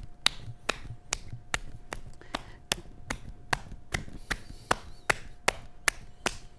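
Steady, even tapping on a cone of earthenware clay as it is being shaped, about two and a half sharp taps a second.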